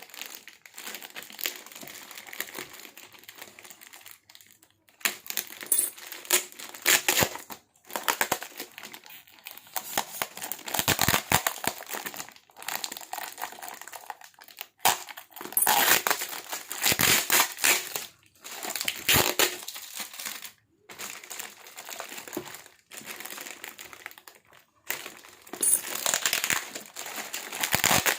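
Packaging being crumpled and unwrapped by hand, in irregular bursts of rustling and crinkling with brief pauses between them.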